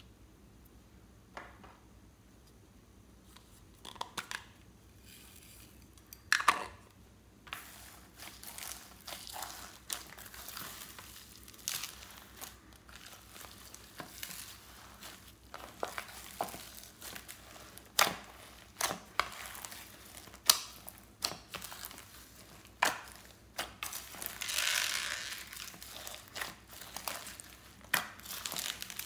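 Clear slime full of foam beads being stretched, folded and squeezed by hand: irregular crackling and popping. It starts after a few scattered clicks about seven seconds in and grows dense, with a longer crackling stretch near the end.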